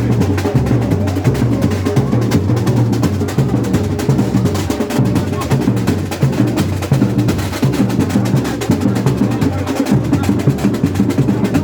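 Loud percussion-led carnival music, with drums keeping a steady beat.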